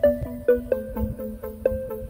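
Background music: a light melody of short, ringing notes over a steady beat.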